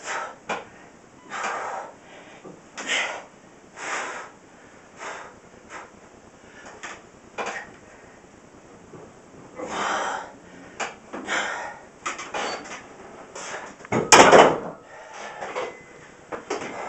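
A man's forceful breathing with each rep of a 95 lb incline barbell press, in short bursts every second or so. About 14 seconds in there is a loud knock as the bar is racked against the wooden uprights.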